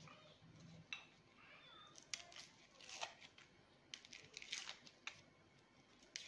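Faint, irregular sharp clicks and scrapes of a kitchen knife peeling garlic cloves over a plate.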